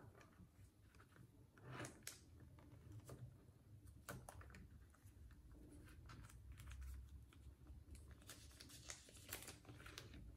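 Faint crinkling and soft clicks of clear plastic binder sleeve pages being handled, with a denser crinkle near the end as a sleeve page is turned over.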